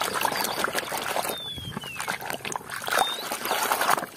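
Muddy water sloshing and splashing in a plastic tub as a toy truck is swished and scrubbed through it by hand.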